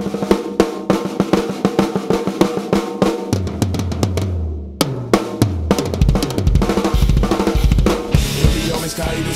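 Drum kit playing a fast one-bar fill: snare, tom and floor tom strokes, bass-drum hits, then quick fours alternating between snare and double bass pedal, with the song's backing music under it.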